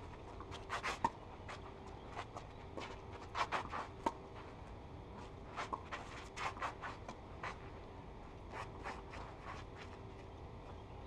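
A tennis rally on a clay court: sharp racket-on-ball hits, with players' shoes scuffing and sliding on the clay between shots. The clicks come in irregular clusters and are loudest in the first half.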